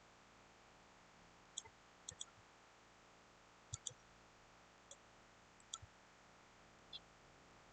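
Computer mouse clicking about nine times over several seconds, some clicks in quick pairs, against a faint steady hiss.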